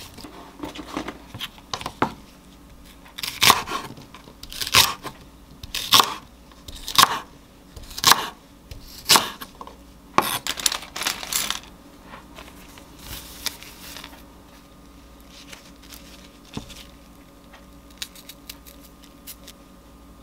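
Kitchen knife chopping a thick green onion (daepa) into large chunks on a wooden cutting board: about eight sharp chops, roughly one a second, from a few seconds in to about halfway, with only light handling clicks after that.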